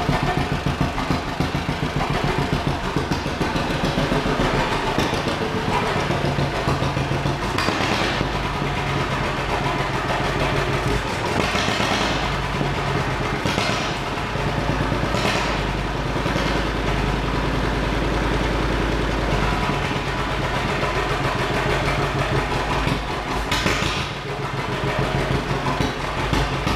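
1941 John Deere Model B two-cylinder engine running smoothly with its slow putt-putt exhaust beat, with a few brief sharp clacks along the way.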